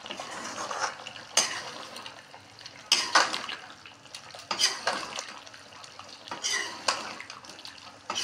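Metal spoon scraping and clinking against a metal kadai while stirring chunks of beef heart and kidney as they fry in masala, about eight strokes at uneven gaps over a steady hiss.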